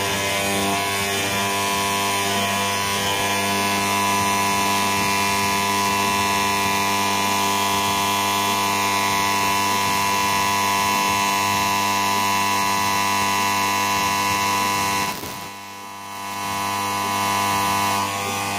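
Desktop CNC milling machine running, its spindle and stepper motors making a steady, many-toned whine. About 15 seconds in the sound drops away for a moment, then picks back up.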